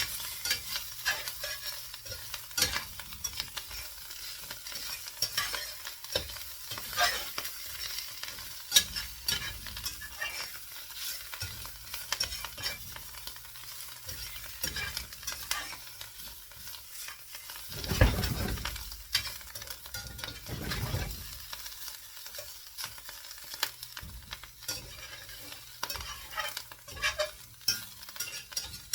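Potato, mushroom, onion and ham omelette frying in a pan: a steady sizzle with constant small crackles and pops. About two-thirds of the way through come two louder, deeper rumbles a few seconds apart.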